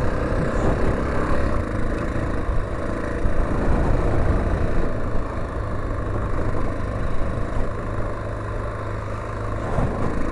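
Honda XL600R's 589cc single-cylinder four-stroke engine running steadily as the bike is ridden over a rough grass track.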